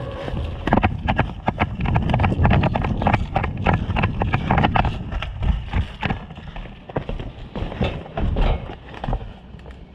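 Running footsteps on dirt and grass with gear rattling: a quick, uneven series of thuds and clicks, dense for the first six seconds or so and then thinning out.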